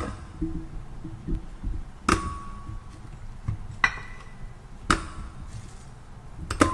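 Onion pieces dropped one by one into a glass Oster blender jar: about five sharp knocks at irregular intervals, a couple of them ringing briefly like a clink on glass.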